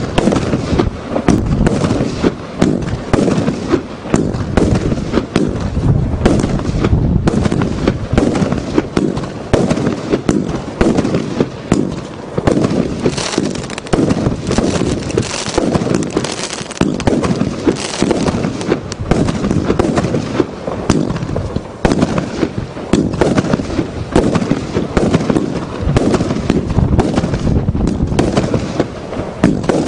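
The Americana consumer firework cake firing shot after shot. A rapid, unbroken string of launch thumps and bursting shells goes on throughout, about two bangs a second.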